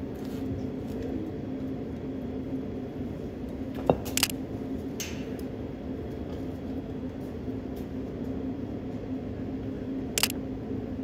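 Camera shutter clicks over a steady low hum: two sharp clicks about four seconds in, a moment apart, and one more near the end.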